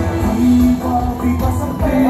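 Loud music with a heavy bass, accompanying a street dance.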